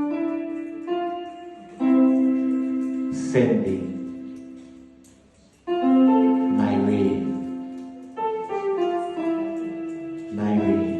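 Slow piano music: chords struck every couple of seconds and left to ring and fade, with a brief near-silent gap about halfway through.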